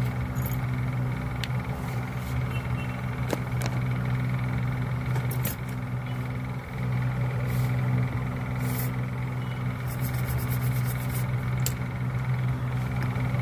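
A steady low mechanical hum, like a motor or fan running, with scattered light clicks and taps. About ten seconds in comes a quick run of ticks.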